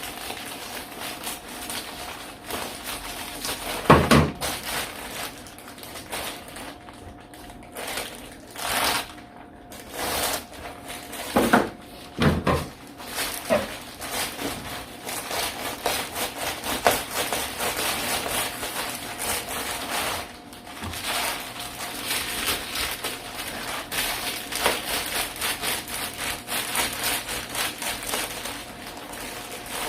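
Thick insulation board being handled and worked by hand: a run of scraping and rustling with a few sharp knocks, the loudest about four seconds in and two more around twelve seconds. A faint steady hum runs underneath.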